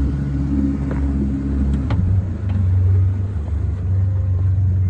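Bass boat's outboard motor running at low speed, a steady low hum whose note changes and drops lower about two seconds in.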